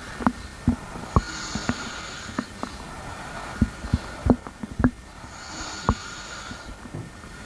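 Stomach gurgling: about a dozen sharp pops and squelches coming at irregular intervals over a steady hiss, with two soft breaths in between.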